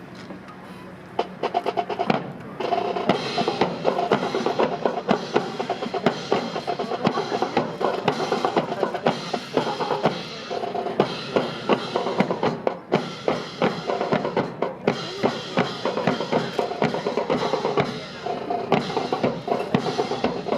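Snare and bass drums of a marching drum corps playing a fast cadence that starts about a second in.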